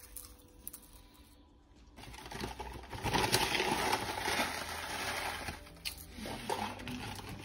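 Fruit muesli being spooned onto yogurt in ceramic bowls. There are a few light clicks of a metal spoon on the bowls, then a dense, dry rustle of the cereal for a few seconds from about two seconds in, then clicks again near the end.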